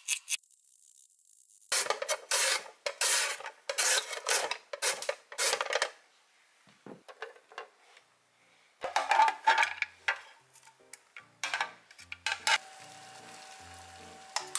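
A carrot being shredded on a plastic julienne slicer: a run of rasping strokes, about two a second, then a few more after a short pause. Near the end, background music starts over the steady hiss of a pot of water at the boil.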